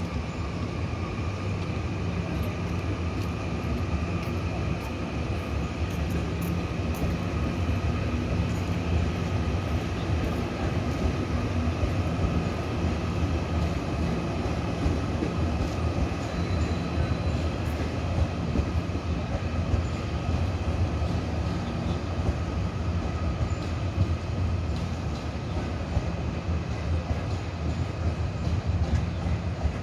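Taiwan Railways tilting express electric multiple unit pulling away from the platform: a steady low hum with a steady high whine over it, and scattered light clicks, the level holding even throughout.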